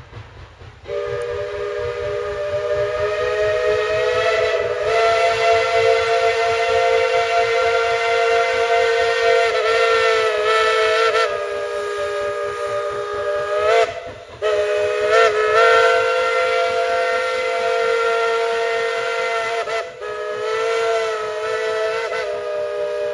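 Steam locomotive whistle sounding a chord of several tones in long blasts. A brief gap and a couple of quick toots come about midway, then it blows on.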